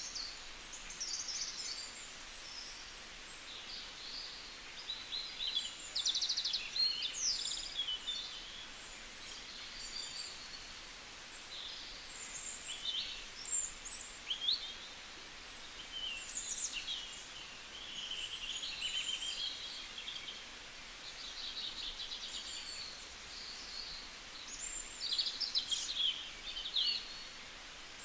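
Several small birds chirping and twittering, short high calls overlapping with each other throughout, some as quick trills, over a faint steady outdoor hiss.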